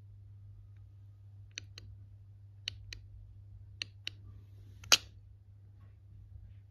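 Sharp small clicks: three light double clicks about a second apart, then one louder single click about five seconds in.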